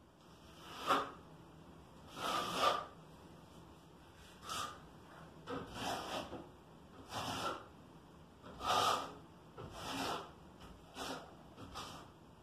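Notched steel trowel scraping and combing tile adhesive onto the wall board in a series of short strokes, roughly one a second.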